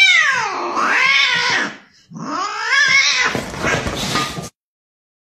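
A recorded cat yowling as if in distress or under attack: two long wailing cries, each rising and then falling in pitch. The second cuts off abruptly about four and a half seconds in.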